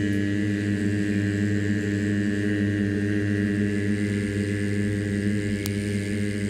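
A low, steady chanted drone: one held pitch with a rich hum of overtones, unbroken throughout.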